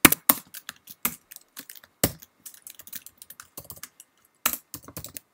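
Typing on a computer keyboard: irregular key clicks with short pauses between runs, a few strokes louder than the rest.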